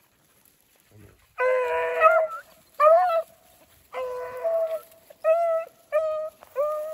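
Two beagles baying on a rabbit track: a run of long, drawn-out hound bawls, starting about a second and a half in, with two voices at different pitches overlapping at times and a longer bawl near the end.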